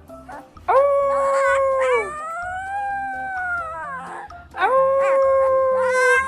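Dog howling in long drawn-out notes over background music. The loudest howls come about a second in and again near the end, with a softer rising-and-falling howl between them.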